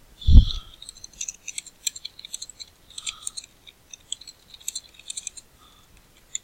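Short, sharp clicks at a computer keyboard and mouse, coming in quick runs for several seconds, after a dull thump just after the start.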